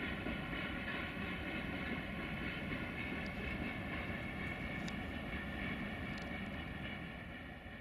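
Engine of a Romanian 060-DA (LDE2100) Sulzer diesel-electric freight locomotive running: a steady rumble with a whine of several tones over it, fading out near the end.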